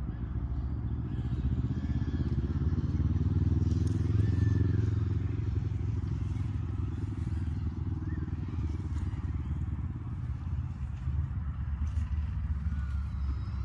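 A motor vehicle's engine running steadily with a low hum, a little louder about four to five seconds in.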